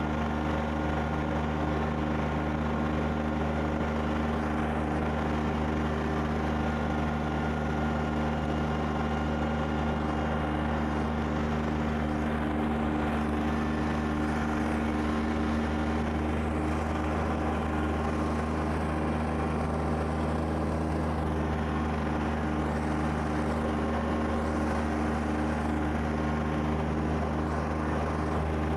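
Kubota BX2680 tractor's three-cylinder diesel engine running at a steady speed, driving a rear-mounted snow blower that is throwing snow. It makes an even, unbroken drone.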